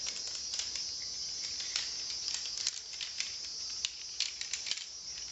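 Scattered light clicks and clinks of jointed tent poles knocking together as they are taken out and handled, over a steady high cricket chirring.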